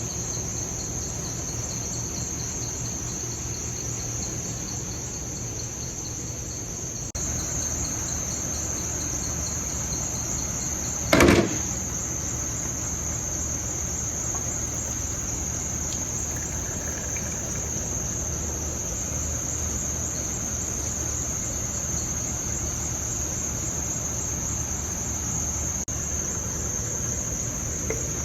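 Steady insect chorus, a constant high-pitched trill like crickets, over a low background rumble. A single loud knock sounds about eleven seconds in.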